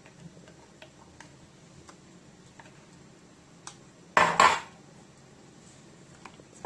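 Utensil scraping and tapping against mixing bowls while whipped cream is folded into cream cheese: scattered light clicks, with one loud clatter of dishware about four seconds in.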